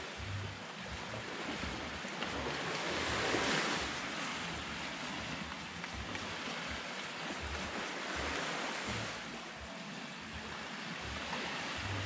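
Surf washing on the shore, swelling about three seconds in and again near nine seconds, with wind buffeting the microphone.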